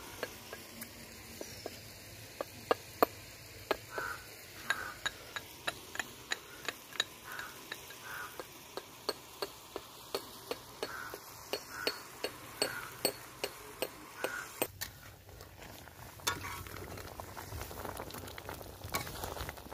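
Metal pestle pounding in a small metal mortar: steady sharp clinks, about two to three a second. They stop about three-quarters of the way in, and a pan of fish curry simmers and sizzles near the end.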